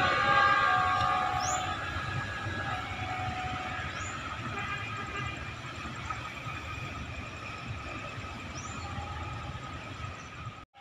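Passenger train rolling away along the track, its rumble and wheel noise slowly fading, with a faint steady whine over it.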